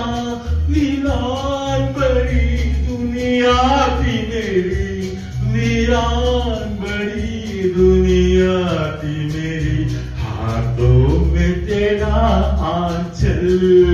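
A man singing a Hindi song into a microphone, holding long notes that bend and waver, over a backing track with a steady bass line.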